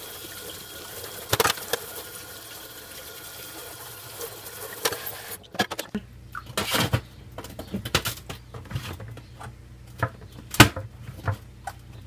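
Kitchen sink sprayer hissing as it rinses a Bosch dishwasher's flat mesh filter, stopping after about five and a half seconds. Then plastic and metal clicks and knocks as the filter is set back into the dishwasher's sump and pressed into place, the loudest knock near the end.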